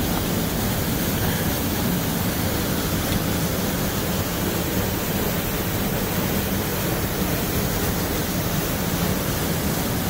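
Steady rush of a waterfall whose water still runs beneath a curtain of ice into an open plunge pool.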